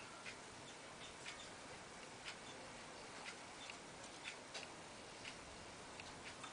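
Faint, regular ticking of a clock, about one tick a second.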